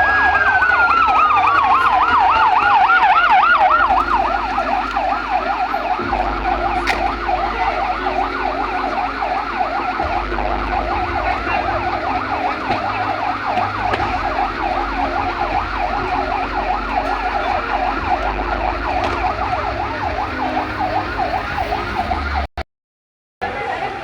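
Emergency vehicle sirens sounding. A slow wail falls away in the first few seconds, while a fast warbling yelp carries on throughout. The sound cuts out for a moment near the end.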